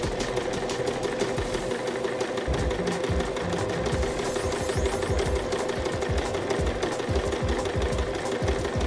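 White domestic electric sewing machine running steadily with a fast, even needle rhythm, stitching a zigzag along a seam to finish the raw edge.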